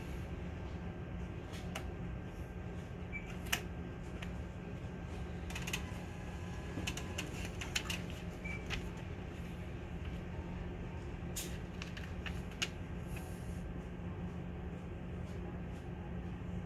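NCR cash machine's receipt printer and card mechanism clicking in scattered bursts while the receipt is printed and the card is returned, with two short beeps, over a steady low background hum.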